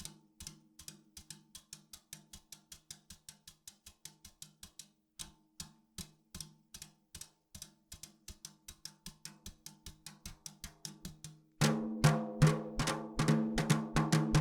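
Quick, even stream of percussive hits, about five a second, over a low held tone: keystrokes triggering sound samples through Soundplant. About eleven and a half seconds in, a much louder, busier drum kit part with snare and bass drum comes in on top.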